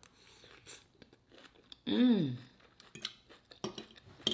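Close-miked chewing of shrimp, sausage and cabbage stir fry: wet mouth clicks and smacks. About two seconds in comes a short hum that rises and falls in pitch, the loudest sound here.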